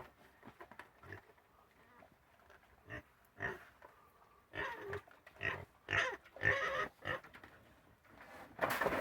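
Pigs grunting and squealing in short calls, several spread through the second half, the loudest near the end.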